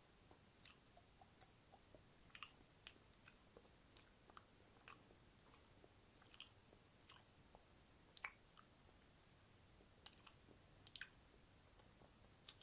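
Wet mouth sounds: soft, irregular clicks and smacks of the lips and tongue, a few each second.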